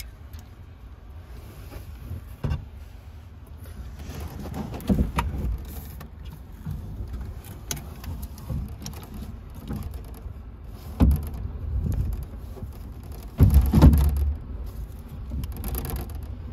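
Hands working on a metal battery cabinet and its mounting hardware: a series of irregular knocks and clunks, the loudest a heavy thump about 13 seconds in, over a steady low rumble.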